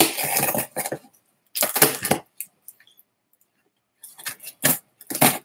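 Knife cutting through the packing tape and cardboard of a shipping box: a scraping, rustling spell about a second long, another short one around two seconds in, and several quick strokes near the end.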